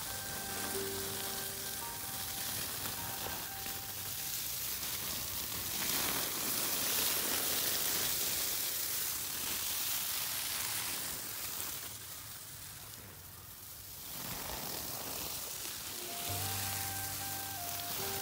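Water from a hose, spread through a plastic bag, spraying and pattering onto rice-straw mushroom beds with a steady hiss, lightly wetting the straw to keep it damp. Background music with held notes sounds at the start and again near the end.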